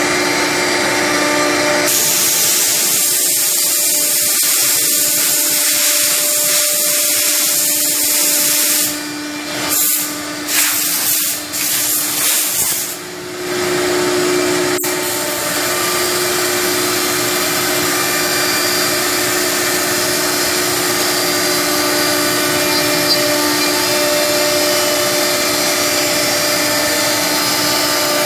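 Holztek R1325-3BF three-spindle CNC nesting router running, with a steady spindle whine and the rush of its dust extraction as it machines a wood panel. The sound dips and stutters several times about ten seconds in, then steadies again.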